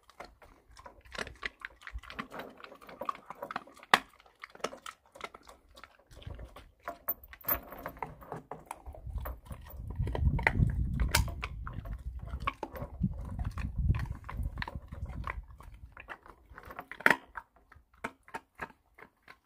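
A white Jindo dog eating scraps off a wooden deck: irregular crunching, licking and clicking, with its metal tie-out chain clinking against the boards. A low rumble comes in about halfway through and lasts several seconds.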